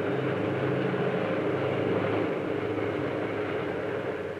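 Diesel-electric locomotive engine running steadily, a continuous low drone with a few held tones.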